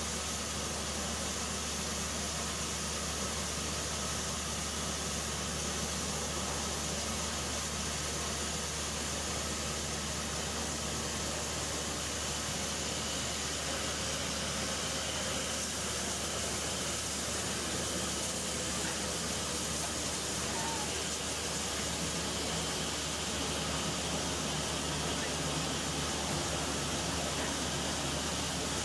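Peppercorn A1 Pacific steam locomotive 60163 Tornado standing at the platform, giving off a steady hiss of steam with no exhaust beats.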